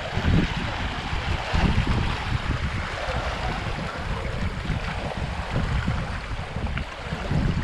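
Wind gusting on the microphone over small lake waves lapping on the shore.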